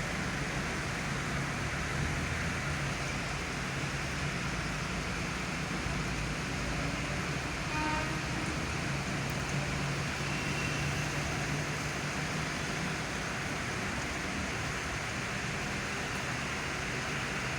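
Steady hiss of rain mixed with a low, steady hum of road traffic, with a brief faint tone about eight seconds in.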